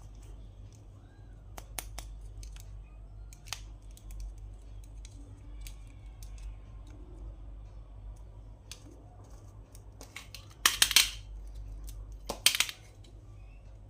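Toy packaging being handled: scattered small plastic clicks and taps, then two louder rasping bursts of cutting or tearing, one about ten seconds in and one about two seconds later.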